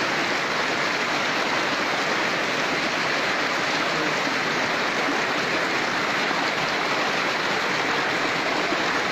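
Fast-flowing river water rushing steadily through and around a bamboo fish trap, foaming where it pours through the slats.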